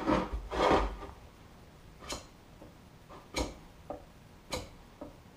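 Spreader scraping thick epoxy filler paste across a metal motorcycle side panel: two longer scrapes in the first second, then four short, sharp scrapes or taps about a second apart.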